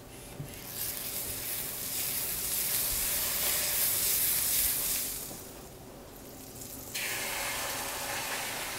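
Crepe batter sizzling in a hot buttered stainless steel frying pan as it is poured in and swirled. The sizzle swells over the first couple of seconds, dies down about five seconds in, then comes back sharply near the end.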